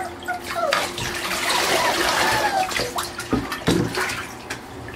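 Water running and splashing in a bathtub as a litter of wet puppies is rinsed, with two knocks a little past halfway.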